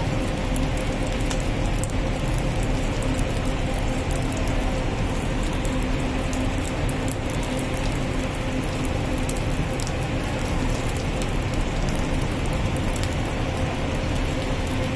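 Fried noodles sizzling in a hot pan, a steady crackle and patter over a steady mechanical hum.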